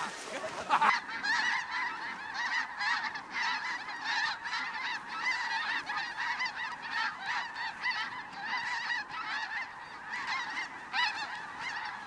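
Snow geese calling: a dense, continuous chorus of many overlapping honks and yelps from a large flock.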